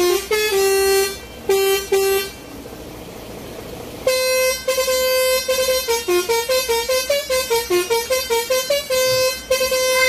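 A musical 'telolet' (basuri) air horn on a lorry playing a tune in stepped notes. It plays a few held notes, breaks off about two seconds in, leaving only a steady background hiss, then comes back about four seconds in with a fast run of short notes.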